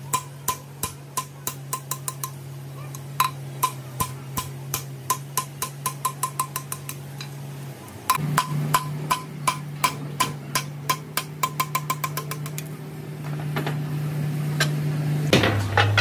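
Quick, sharp, ringing taps, several a second, with a short pause about two seconds in, over a steady low hum that shifts in pitch a few times and drops lower near the end.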